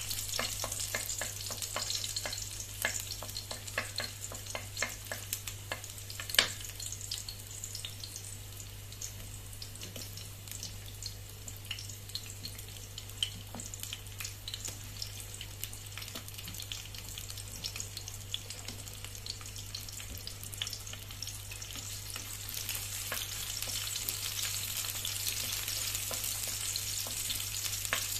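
Minced garlic and sliced onion sizzling in hot oil in a wok, with a wooden spatula scraping and tapping against the pan and a sharper knock about six seconds in. The sizzle grows louder near the end, over a low steady hum.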